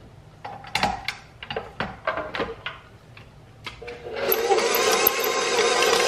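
Clicks and metallic knocks as the flat beater is fitted to a bowl-lift stand mixer over its stainless steel bowl. About four seconds in, the mixer's motor starts and runs with a steady hum, its beater turning through batter.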